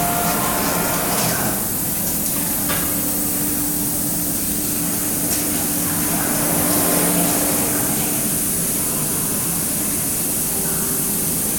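Steady hiss and hum of a wave soldering production line running, with a constant low tone underneath and a few faint clicks.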